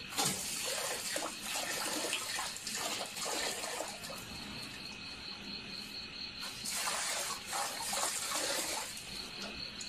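Water running from an outdoor tap and splashing into a metal basin, cutting off about four seconds in and starting again near seven seconds as a dog works the tap with its nose. Crickets chirp steadily in the background.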